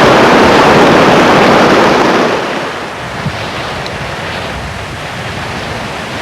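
Storm wind and surf rushing loudly, dropping to a lower, steady rush a little over two seconds in.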